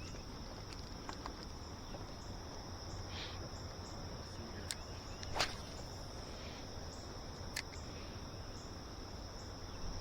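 Steady chorus of crickets, a continuous high trill, with a few sharp clicks in the middle.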